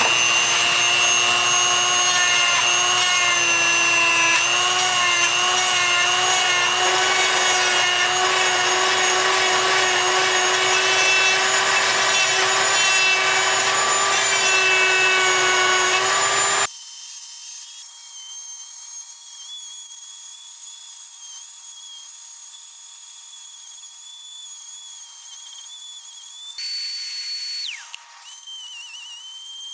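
Dremel rotary tool with a carbide bit running at high speed and grinding JB Weld epoxy off a motorcycle engine case: a steady high whine with a grinding rasp, wavering slightly as the bit bears on the material. About 17 seconds in, the sound cuts abruptly to a quieter, thinner high whine, with a brief higher tone that slides down near the end.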